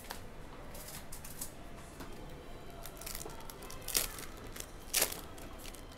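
A sealed trading-card pack's wrapper being handled and torn open by hand, quiet rustling with two short, sharper rips about four and five seconds in.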